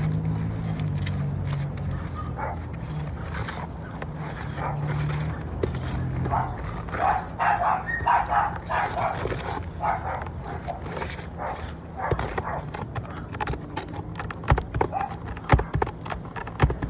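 A dog barking in a quick series of barks midway through, over a steady low hum. Sharp knocks follow near the end, from a tool working the nails out of a roof shingle.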